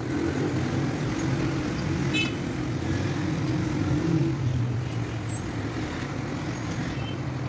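Steady low rumble of motor traffic going by, with no speech.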